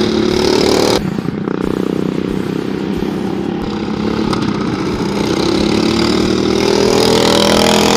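Racing riding lawnmower engine running hard at high revs. There is a sudden break about a second in, and the pitch climbs steadily over the last three seconds as the mower accelerates close by.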